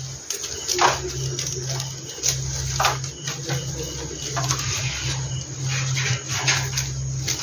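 Dry straw rustling and crackling in irregular bursts as a rabbit moves about in it, over a steady low hum.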